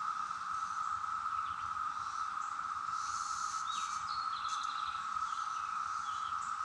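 Massed chorus of periodical cicadas (jar flies) in the woods: a steady, unbroken high drone. A few bird chirps come through about three to four seconds in, with faint road rumble underneath.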